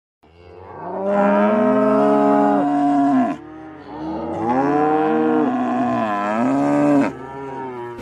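A cow mooing: two long moos of about three seconds each, the second beginning about four seconds in, the pitch dropping at the end of each.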